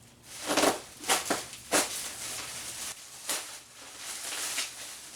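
Packaging being handled as a new motorcycle seat is unpacked: a run of short crinkling, rustling bursts in the first two seconds, another a little past three seconds, then softer rustling.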